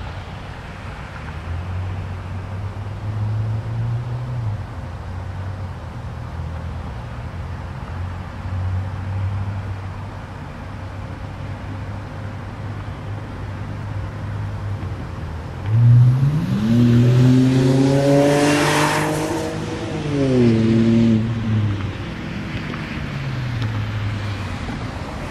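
2006 BMW 330i's N52 inline-six with a muffler-delete exhaust. A steady low engine hum runs for the first part; about two-thirds in, the engine opens up loudly, rising in pitch, then drops in pitch as the car passes and fades away.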